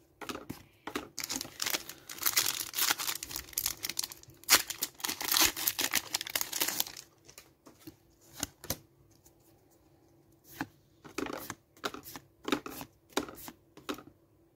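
Crinkling, tearing-like rustle of a foil booster-pack wrapper and trading cards being handled for several seconds. After that, quieter separate flicks and slides as the cards are flipped through one at a time.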